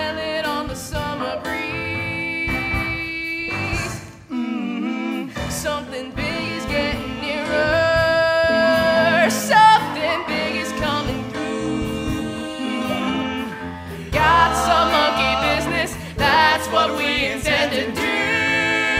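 Musical-theatre song performed live by singers and a band: several voices sing held notes, some with vibrato, over accompaniment with sharp drum hits.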